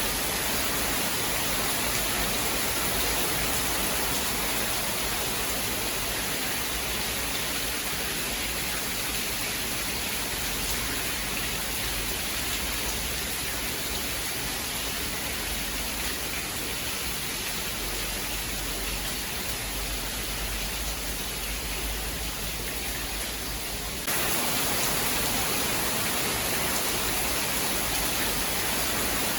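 Steady heavy rain falling, an even hiss with no distinct drops standing out; about twenty-four seconds in it abruptly gets louder and brighter.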